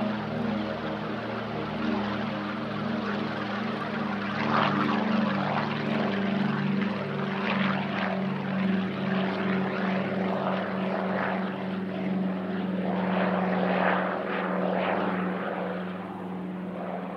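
Douglas C-47 Dakota's two Pratt & Whitney R-1830 radial engines at takeoff power as it lifts off and climbs away: a loud, steady deep drone with a pulsing beat between the two engines and rough propeller noise. It fades near the end.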